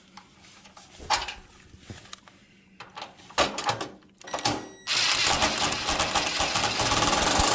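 A few metal clicks and knocks, then about five seconds in a small power tool starts running with a steady, fast rattle that carries on without a break.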